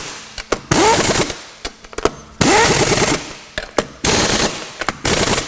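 Impact wrench running the lug nuts down in three short rattling bursts, each about half a second long.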